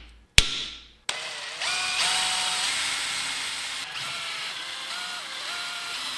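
A single sharp metallic strike on a center punch. Then, about a second in, a drill starts boring a hole through a small stainless steel tab: a steady cutting noise with a whine that shifts up and down in pitch as the bit bites.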